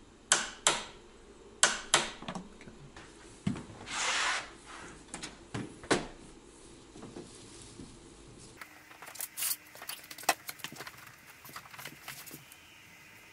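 Click-type torque wrench breaking over with sharp clicks, two pairs in the first two seconds, as it reaches its set torque of 21 foot-pounds on the DC cable lugs. Afterwards come scattered knocks, rustling and small clicks of heavy 2/0 copper cable being fed along a metal wireway.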